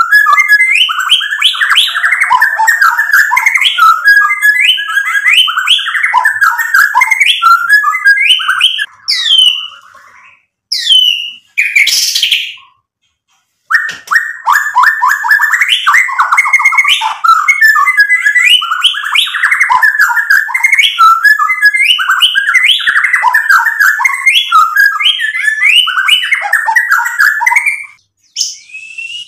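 White-rumped shama singing a loud, rapid, varied song of quickly repeated phrases. Near the middle the song breaks off for a few seconds, with a few sharp rising whistles, then starts again and stops shortly before the end.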